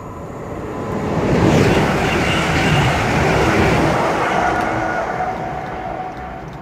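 Passenger train passing through a station at speed. Its rushing noise swells to a peak about a second and a half in, holds, then fades away near the end, with a few faint steady tones over it.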